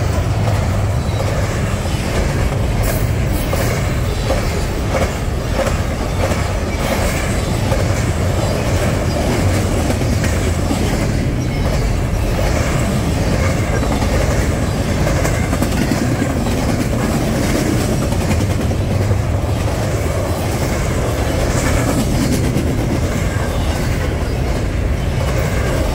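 Union Pacific double-stack intermodal train's container well cars rolling past close by: a steady rumble of steel wheels on rail, with faint repeated clicks.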